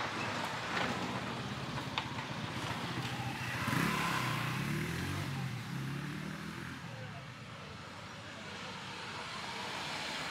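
Street traffic: a motor vehicle's engine passes, loudest about four seconds in and fading away by about seven seconds.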